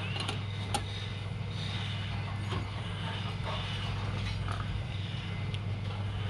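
Wood lathe running with a steady low hum, with a few light clicks and scrapes near the start.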